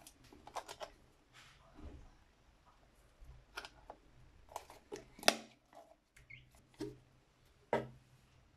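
Scattered sharp clicks and light knocks at irregular intervals, as of containers and utensils being handled while making slime. The loudest knock comes a little past five seconds in.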